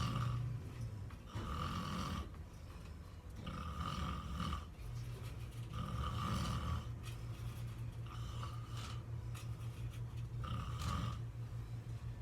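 A person snoring in sleep: a rasping snore repeating about every two seconds.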